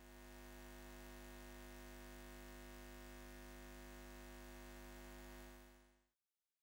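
Faint steady electrical hum with many overtones, fading in at the start and fading out about a second before the end, followed by dead silence.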